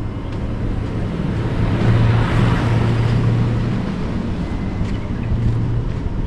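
A car running with a steady low engine hum, while a broad rush of tyre and wind noise swells about two seconds in and fades again, as a car passes on an unpaved farm road.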